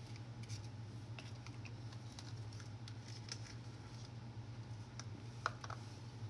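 Faint scattered light clicks and taps over a steady low hum, with one sharper clink about five and a half seconds in.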